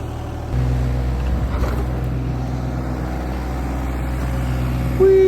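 Small petrol engine of a portable water pump running steadily, picking up speed and getting louder about half a second in as pumping starts.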